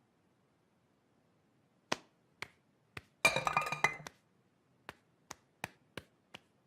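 Light, sharp clinks and clicks. Three single clicks come first, then a quick jangling run of clinks with ringing tones about three seconds in, then five more single ticks about half a second apart.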